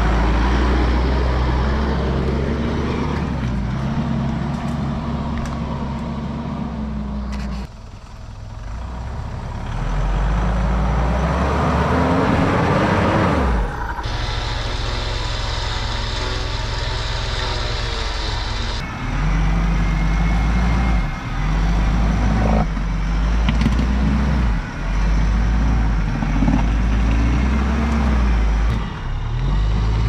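Mitsubishi Pajero Sport's common-rail diesel engine pulling the 4x4 along an off-road track, revving up and easing off. The sound changes abruptly several times.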